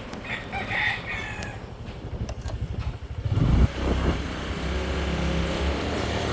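Motorcycle engine running on the road in traffic, with an engine growing loud about three and a half seconds in and then dropping off.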